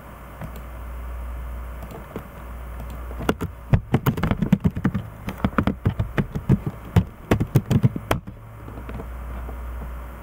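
Computer keyboard typing: a run of rapid keystrokes from about three seconds in until about eight seconds in, over a low steady hum.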